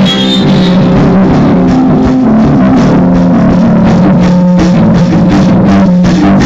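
Amateur rock band playing live in a small room: electric guitar over a drum kit, loud and steady, with drum hits several times a second throughout.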